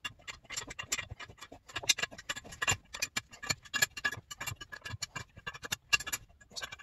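Ratcheting wrench clicking as it works two jam-locked nuts on an engine cylinder stud back and forth, to loosen the stud after soaking it in penetrating oil. The sound is many sharp clicks in uneven runs, with small metal clinks.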